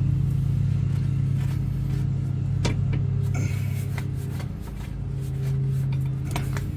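Steady drone of large professional lawnmower engines running, dipping in level about two-thirds of the way through, with a few sharp metallic clicks of a socket extension on a bolt.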